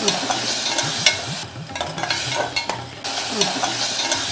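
A metal ladle stirring a tomato, onion and garlic mixture frying in a steel pot. The ladle clicks and scrapes against the pot over a steady sizzle.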